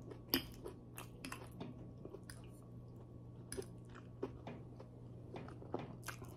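Close-up mouth sounds of a person chewing spaghetti: irregular wet clicks and smacks, most frequent in the first second and a half and again near the end.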